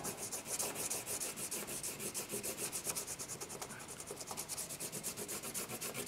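The side of a graphite pencil rubbed back and forth over paper laid on a leaf, a fast, even train of scratching strokes on the paper.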